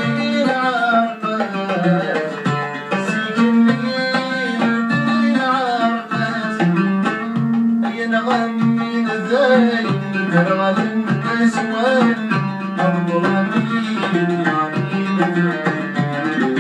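A man singing in a North African folk style to the accompaniment of plucked string instruments, a round-backed lute among them, with the plucking keeping a steady, rhythmic beat.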